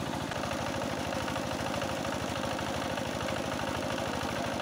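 Small single-cylinder diesel engine driving an irrigation water pump, running steadily with an even, rapid beat, while water gushes from the outlet pipe.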